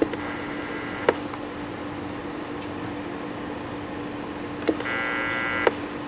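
Clicks of buttons and switches on a Stryker SR-447HPC2 CB radio as its controls are worked, over a steady low hum. Twice a click starts a buzzy tone that lasts about a second and ends with another click.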